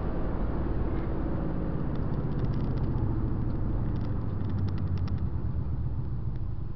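Inside the cabin of a moving Infiniti M56: a steady low hum of its 5.6-litre V8 and road noise, easing off near the end. Clusters of light clicks come about two and four seconds in.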